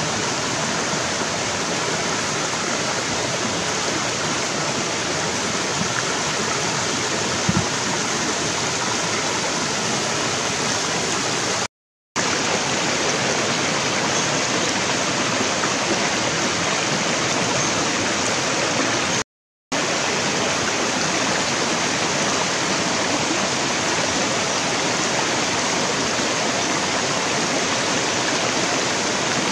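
Steady rushing of a shallow rocky stream flowing over stones, an even hiss of water, broken twice by a brief total silence.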